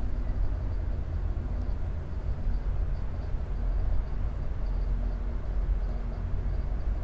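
Night-time city ambience: a steady low rumble of distant traffic.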